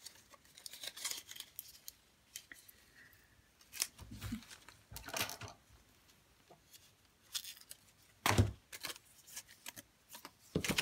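Temporary tape being peeled off a cardstock die cut, with paper rustling and scattered crackles, and soft thumps about four and eight seconds in as the paper is handled against the table.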